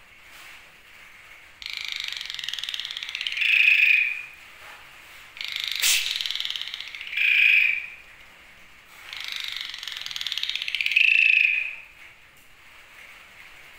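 Asian pied starling (jalak suren) giving three harsh, rasping 'snoring' calls, each lasting two to three seconds and ending in a louder, clearer note.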